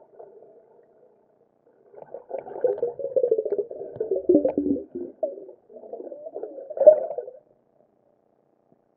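Muffled, wavering, moan-like sounds picked up underwater by a camera in a waterproof housing. They start about two seconds in, dip briefly, and stop about seven and a half seconds in.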